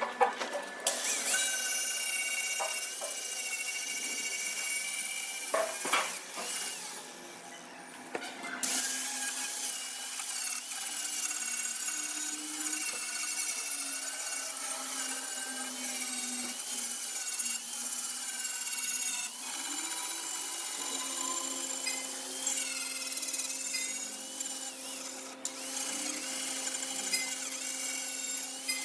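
Power tool running with a high whine that wavers in pitch as it works, easing off briefly about six to eight seconds in.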